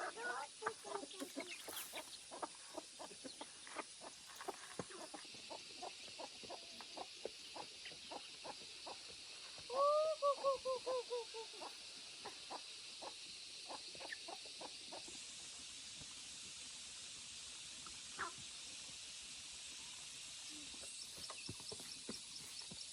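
Chickens clucking with short, frequent clucks, and one bird giving a quick run of falling calls about ten seconds in. A steady high hiss runs underneath.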